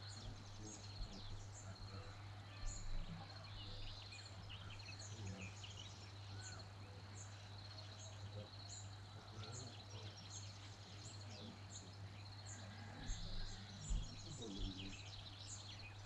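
Several wild birds singing and calling in the countryside, one repeating a short high note over and over about once or twice a second among other chirps, over a steady low hum.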